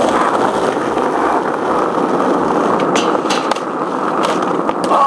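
Skateboard wheels rolling steadily on asphalt, with a few sharp clacks in the second half.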